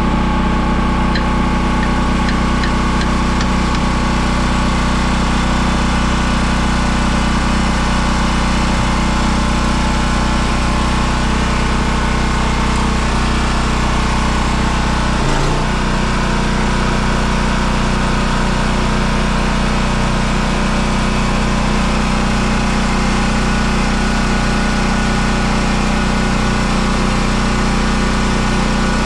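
An engine running steadily, its pitch stepping to a new setting about halfway through with a short knock.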